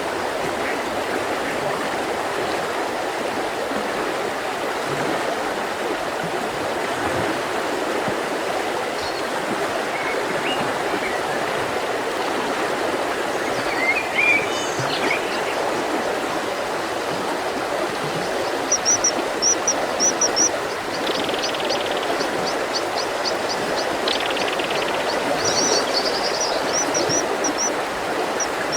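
Mountain river flowing steadily. Small birds call over it: a few short chirps about halfway through, then quick, high repeated notes through the second half.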